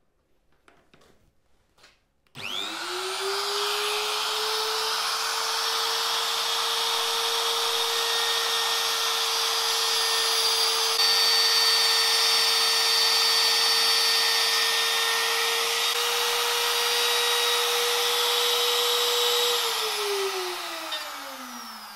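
A Makita trim router is switched on about two seconds in, spins up quickly to a steady high whine and runs at constant speed while its bit cuts a shallow first pass into plywood, with a hiss of cutting over the motor tone. Near the end it is switched off and the whine falls steadily in pitch as the motor winds down.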